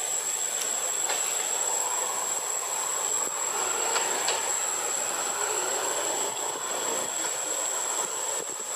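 Steady high-pitched insect chorus, a single unbroken whine, over a softer continuous hiss.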